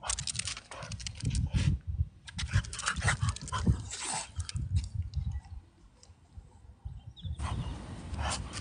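A French bulldog's breathing sounds in irregular bursts, mixed with short clicks, going quiet for about two seconds past the middle before a steady hiss comes in near the end.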